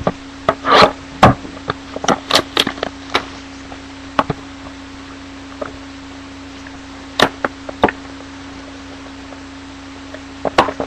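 A trading-card pack being torn open and its cards handled: scattered short crinkles and clicks, busiest in the first few seconds and again past the middle. A steady low electrical hum sits underneath.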